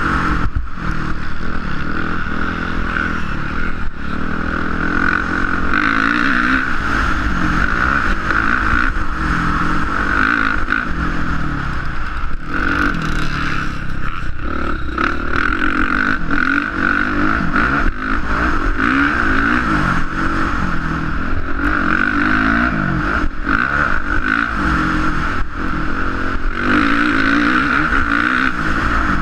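450cc four-stroke motocross bike engine revving up and down repeatedly as the bike is ridden round a track, heard from an on-board action camera with steady wind rush and scattered knocks and rattles over the bumps.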